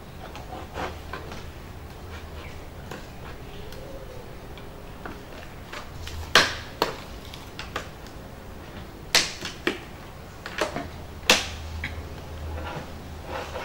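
Scissors snipping and crackling through the thin plastic wall of a mineral-water bottle, cutting out a marked circle: irregular sharp snips, the loudest few coming in the second half.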